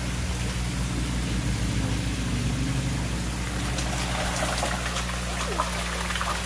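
Heavy stream of water pouring from a pipe outlet into a koi pond, a steady rush over a low steady hum. From about four seconds in, splashing joins it as the koi surge to the surface for feed.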